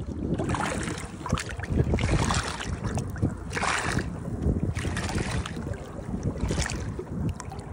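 Water splashing and sloshing around a hand and a bream as the fish is lowered into the water and released, with irregular splashes every second or so.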